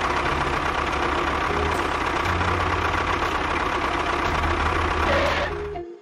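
A motor running steadily with a dense, rattling engine-like noise, cutting off abruptly just before the end.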